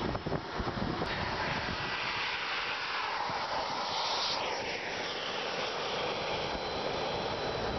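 A radio-controlled model jet's turbine engine running at power, a steady rushing noise with a high whine that falls in pitch as the jet passes, about four to five seconds in.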